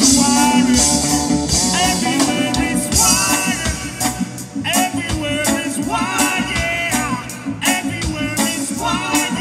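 Live reggae band playing, with a man singing lead into a microphone over keyboard, guitar and drums.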